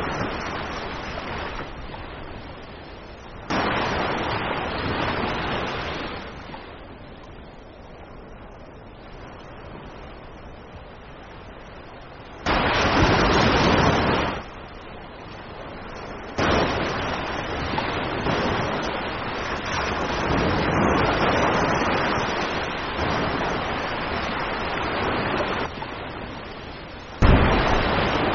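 Humpback whale striking the sea surface again and again: heavy sudden splashes about half a dozen times, each followed by the hiss of water falling back. The loudest comes near the end, a full-body breach crashing down in a huge plume of spray.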